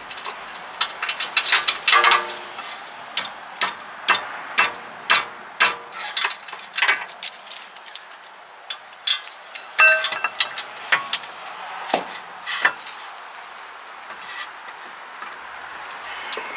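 Socket wrench ratcheting in short, irregular runs of clicks, with a few metallic clinks that ring briefly, as bolts on the rear brake caliper bracket are tightened to a torque setting.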